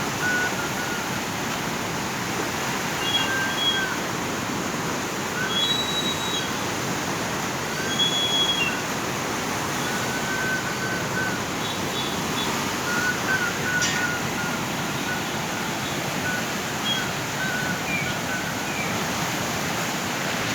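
Floodwater rushing through the Koshi Barrage in a steady, unbroken wash of noise. Short high whistle-like chirps recur throughout.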